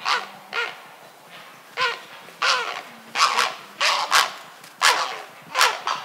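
Grey herons at a nesting colony calling: a run of about nine short, harsh, barking calls, each dropping in pitch, coming one or two a second.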